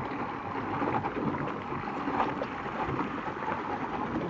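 Polaris personal watercraft idling, its jet churning the water at the stern: a steady noisy rush.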